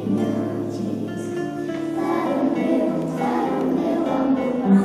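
A group of children singing a song together, holding each note.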